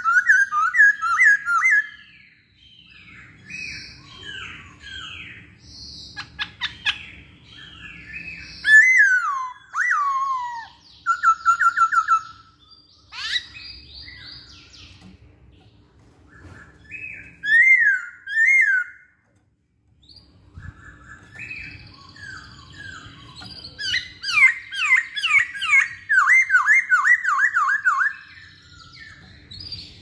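Masked laughingthrush (poksay Hongkong) singing: loud, varied whistled phrases of quick sliding and repeated notes, with a short pause about two-thirds through and a fast run of falling notes near the end.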